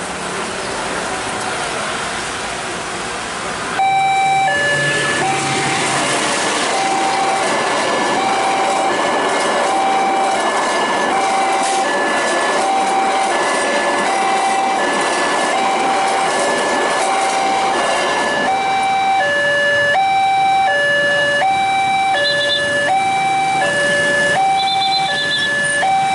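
Railway level crossing warning alarm, starting suddenly about four seconds in: an electronic two-tone ding-dong repeating about once a second, which signals an approaching train. A second set of tones joins out of step in the second half, over steady road traffic noise.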